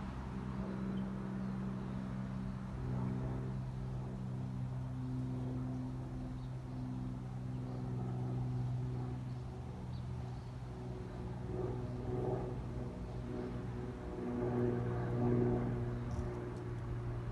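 A motor running steadily: a low hum with a few held tones that shift slightly in pitch now and then.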